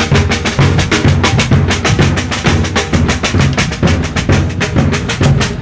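Street drum band playing a fast, steady rhythm on large bass drums and snare drums, with dense strikes several times a second.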